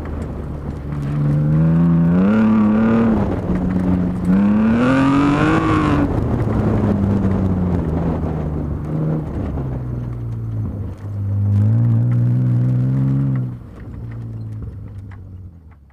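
Car engine, heard from inside the car, revving up and falling back over and over as the driver accelerates and lifts between cones on a dirt rally-cross run. The highest rev is about five seconds in; about thirteen and a half seconds in the revs drop away and the engine winds down as the car slows at the finish.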